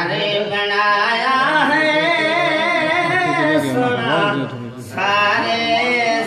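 A man's voice singing a Punjabi naat unaccompanied, in a melodic chanting Saraiki style, amplified through a microphone. There is a brief break in the line about four and a half seconds in.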